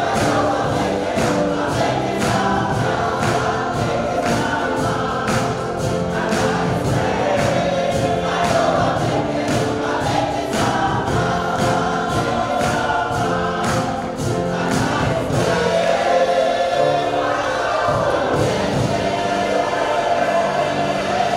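Gospel church choir singing, with handclaps on a steady beat that fade out about two-thirds of the way through.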